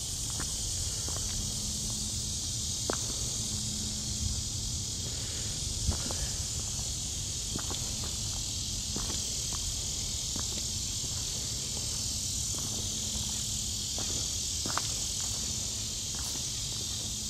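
A steady, high chorus of insects buzzing in the trees, with irregular footsteps on a flagstone path.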